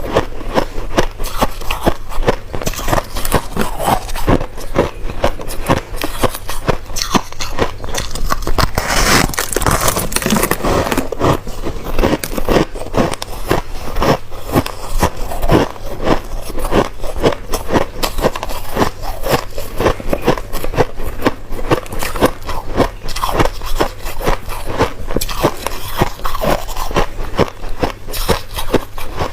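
Close-up crunching and chewing of crushed ice in the mouth: rapid, dense crackling bites that go on without a break.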